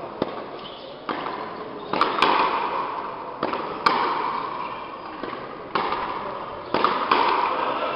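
Frontenis rally: the rubber ball cracking sharply off rackets and the frontón's walls about nine times, roughly one strike a second, each crack ringing on in the echo of the enclosed court.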